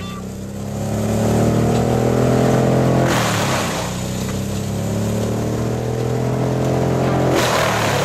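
Red Roo 750Xtreme drum woodchipper running under load as a log is fed into it. Its drum gives two loud crunching bursts while chipping the wood, about three seconds in and again near the end.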